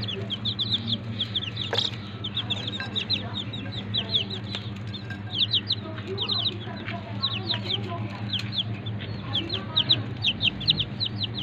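Several young chicks peeping, short falling peeps coming in quick runs of several at a time, over a steady low hum.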